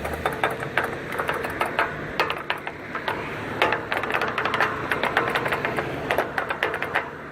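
McCain pedestrian crosswalk push button being pressed over and over, giving a quick run of sharp mechanical clicks, several a second and unevenly spaced, over steady traffic noise.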